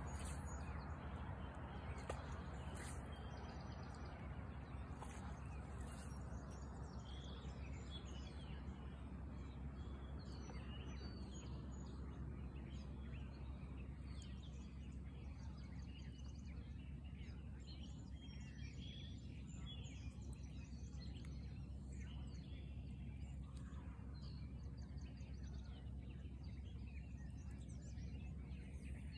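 Outdoor ambience of scattered bird chirps and calls over a low steady rumble.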